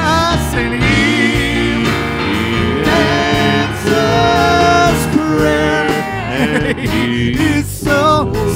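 Live worship band playing a slow gospel chorus, with singers' voices over acoustic guitar and other instruments.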